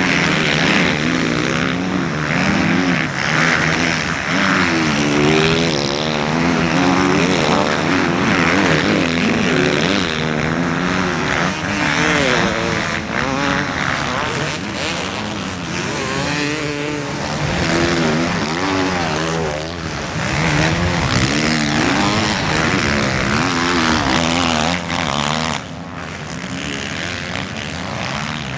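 Motocross bike engines revving up and down again and again as the bikes ride through deep sand, getting somewhat quieter near the end.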